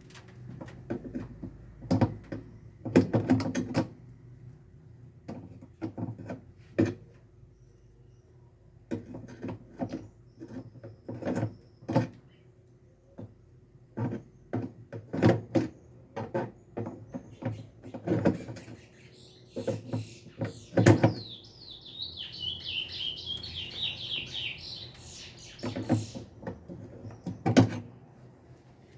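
Screws being driven in to mount a washing machine's replacement actuator: scattered tool clicks and knocks, and a few seconds of high squeaking about three-quarters of the way through as a screw turns tight.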